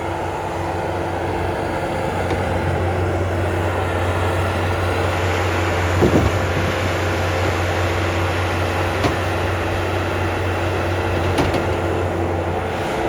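An engine running steadily at an even speed, with a few short knocks over it.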